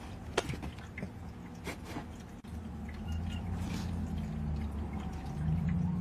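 A domestic cat growling low and steadily, starting about halfway through and swelling a little louder near the end, with a few light taps before it. It is a defensive growl at a strange object.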